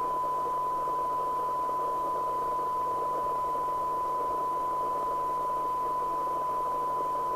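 FM CB radio receiver's audio playing a steady 1 kHz test tone through a layer of hiss. This is a weak test signal of about 0.26 microvolts, set at the 12 dB SINAD sensitivity point.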